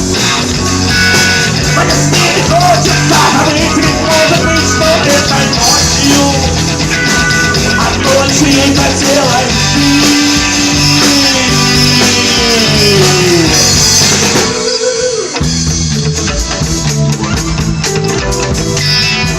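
Live rock band playing an instrumental break: a lead line with sliding, bending notes over bass and drums. About fifteen seconds in the band drops out briefly, then comes back in with full strummed guitar and drums.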